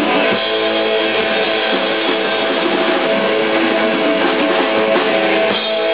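A small rock band playing live with no singing: strummed electric guitar is the loudest part, over bass guitar and drum kit.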